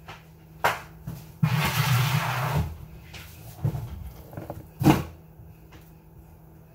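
A paper towel rustling and chicken bones being gathered up and dropped into a trash bin, with a few knocks. The loudest knock comes about five seconds in.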